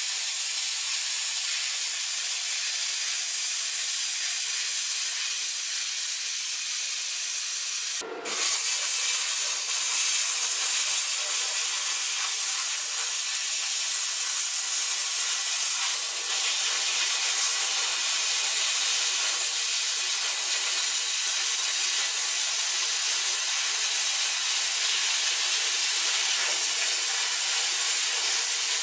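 Plasma cutter cutting through rusty sheet-steel floor panel: a steady, loud hiss of the arc and its air stream. It breaks off for a moment about eight seconds in, then restarts.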